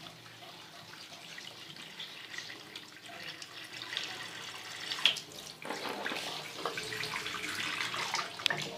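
Water running from a tap, growing louder about five seconds in, with a few sharp knocks.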